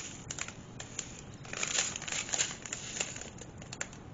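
Small plastic bags of diamond-painting drills crinkling in irregular bursts as they are handled.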